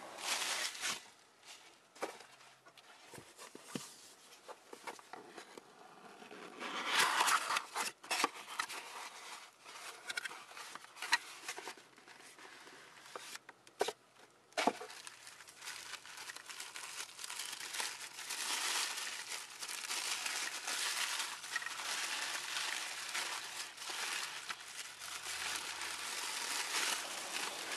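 Tissue paper being handled by hand, crinkling and rustling as a wooden puzzle is unwrapped from it. It comes in irregular spells with quiet gaps in the first half, then crinkles almost without a break through the second half, with a few light knocks.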